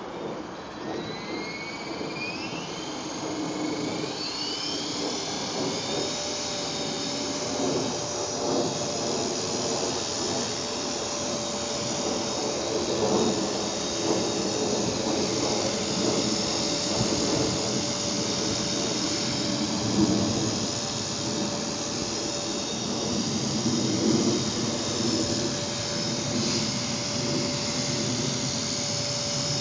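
Blade 450 electric RC helicopter spooling up, its motor whine rising in pitch over the first few seconds, then hovering with a steady motor whine and rotor buzz.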